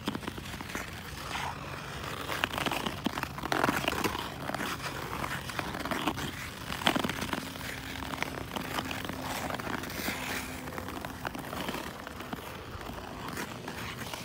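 Ice skate blades scraping and crunching over rough natural lake ice, with scattered crackles and clicks as the strides go on.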